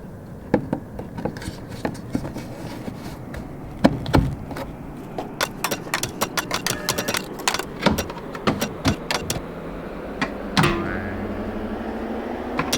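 Irregular clicks and knocks of hard objects being handled, over a steady low hum; a steady tone comes in about ten and a half seconds in.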